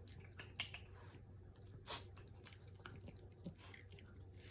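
Faint, irregular small clicks and taps, with two sharper clicks about half a second and two seconds in, over a low steady hum.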